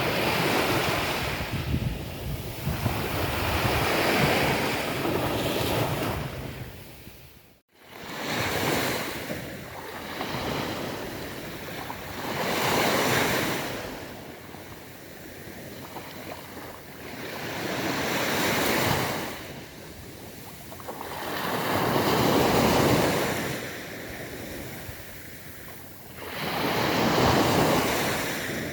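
Sea waves washing onto a beach, the surf swelling and fading about every four to five seconds. Wind rumbles on the microphone in the first part, and the sound cuts out for a moment about seven and a half seconds in.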